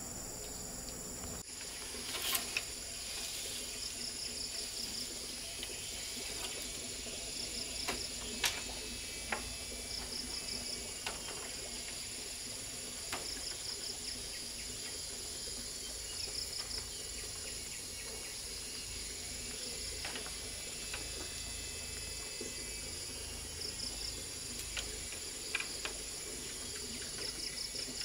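Insects chirping steadily, a high-pitched drone with short repeated trills, while a few sharp knocks and clicks of bamboo poles being handled sound now and then.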